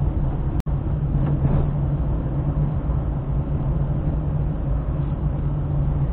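Steady engine and road hum of a car driving along a town street, heard from inside the cabin. The sound drops out completely for an instant about half a second in.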